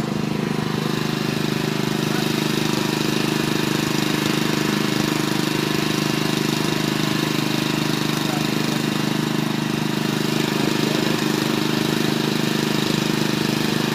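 An engine running steadily at a constant speed, an even hum that neither rises nor falls.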